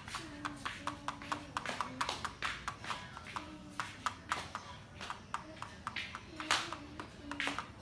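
Plastic stylus tapping and scratching on a children's magnetic drawing board, quick irregular clicks several a second as raindrops are drawn, with one sharper, louder tap about six and a half seconds in.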